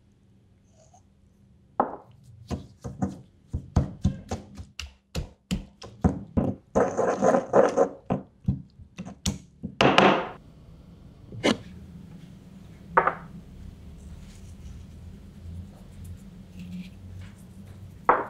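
Stone pestle pounding and grinding chilli sambal with salt and sugar in a stone mortar (cobek and ulekan): a run of quick knocks starting about two seconds in, a longer scraping grind in the middle, then a few single knocks.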